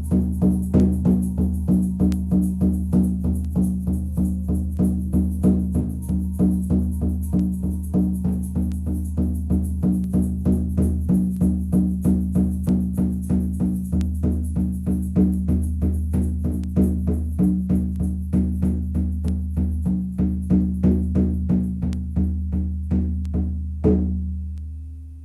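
Shamanic drum beaten at a steady pace, about three strokes a second, its deep tone ringing on between strokes. A last stroke comes near the end and the drum fades away.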